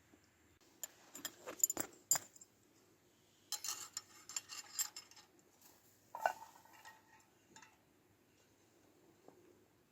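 Clinking and rattling of cutlery and tableware being handled, in three bursts, the last a single ringing clink about six seconds in.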